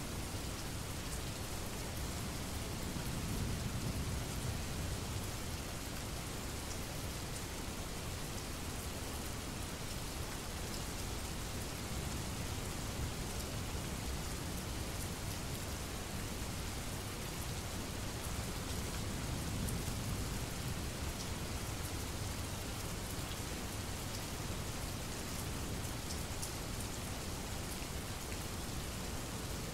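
Steady rain falling, with distant thunder rumbling low twice, a few seconds in and again around twenty seconds.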